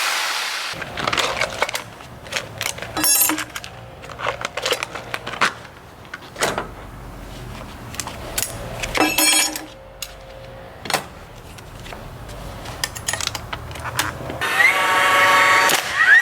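Makita JR3050T 11-amp corded reciprocating saw running at full speed with its trigger locked on, cutting off about a second in. Then come scattered knocks, clinks and metallic rattles, and near the end a new whine that rises in pitch.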